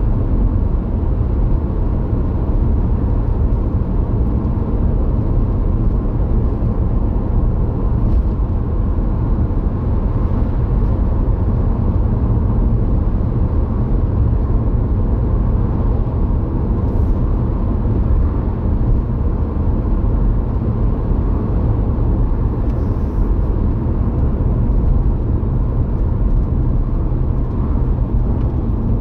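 Steady road and engine noise inside a moving car's cabin, mostly a low rumble.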